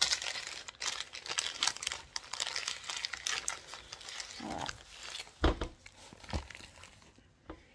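Plastic packaging of a diamond painting kit crinkling and rustling as it is handled, for about the first four seconds. Then two dull knocks, about a second apart.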